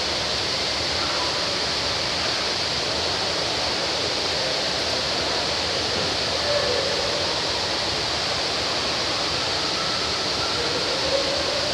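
Steady rush of falling water, an even hiss without breaks, from the waterfall or water feature of the otters' exhibit pool.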